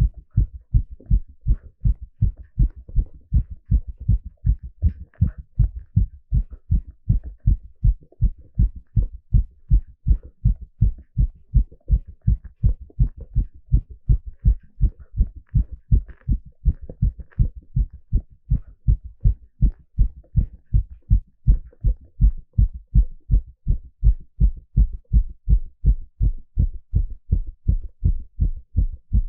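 A man's heartbeat heard through a stethoscope on the chest during an ECG stress test: a steady, regular run of low, dull beats.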